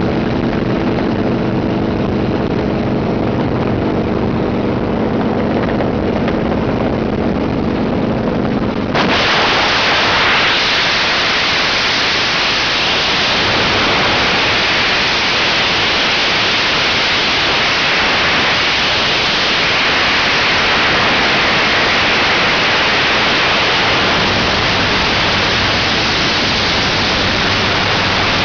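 Helicopter engine and rotor drone heard from inside the cabin; about nine seconds in it is suddenly swamped by a loud, steady rush of wind noise as the microphone is put out the open door into the roughly 91 mph airstream.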